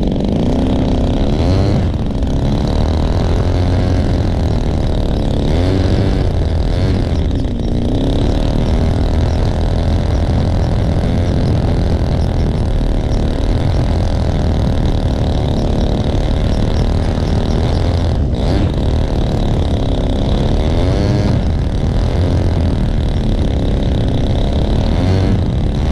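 Senior Telemaster RC model airplane's engine running loud at high throttle during its taxi and takeoff run on grass, its pitch sweeping up and down several times as the throttle is worked and the plane passes.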